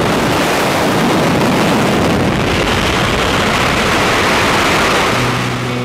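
Loud rushing wind buffeting the camera's microphone in skydiving freefall, just out of the aircraft door. Music begins to come in near the end.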